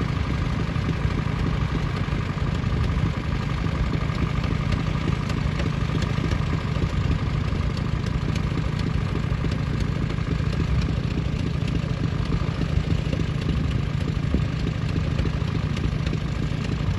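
Nuffield 10/60 tractor engine running steadily while pulling a plough, with a light clatter over the engine note.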